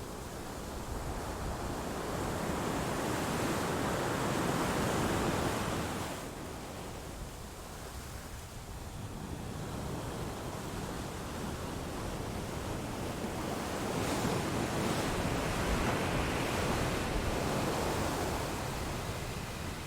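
Waves washing on a shore: a steady rush of surf that swells and falls back, peaking twice.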